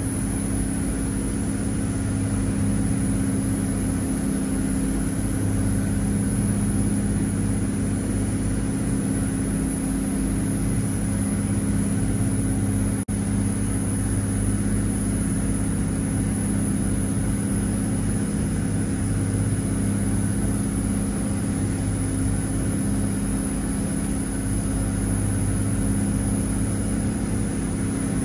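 Fishing trawler's inboard diesel engine running steadily, a constant low drone.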